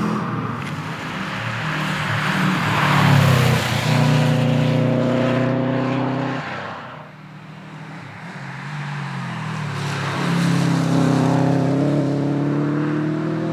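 Subaru WRX STI rally car's turbocharged flat-four engine under hard acceleration on a stage, pitch climbing with gear changes. About halfway through the engine drops off and goes quieter for a moment, then picks up and climbs in pitch again.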